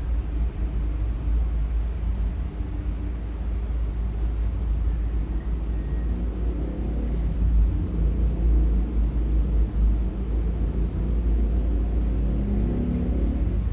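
A young woman snoring in her sleep: drawn-out, low snores about halfway through and again near the end, over a steady low rumble.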